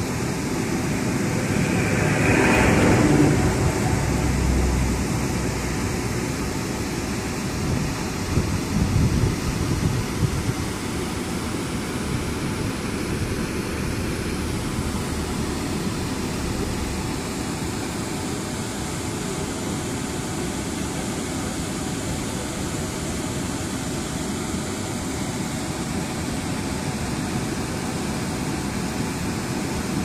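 Steady rushing noise of a large waterfall, swelling louder for a couple of seconds near the start.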